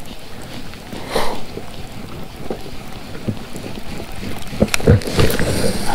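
Wind buffeting the microphone aboard a kayak, with a brief rustle about a second in and a few dull knocks near the end.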